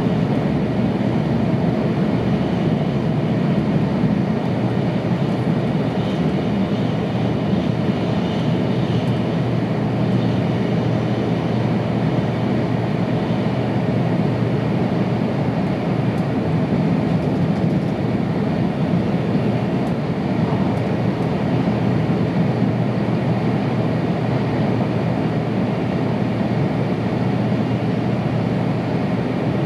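Tohoku Shinkansen train heard from inside the passenger cabin while running at high speed: a steady low rumble of running noise that holds even throughout.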